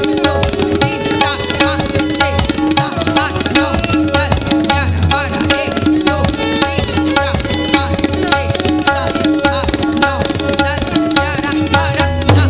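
Kathak dance accompaniment: fast tabla strokes in a dense, driving rhythm over a sustained drone and a melodic line.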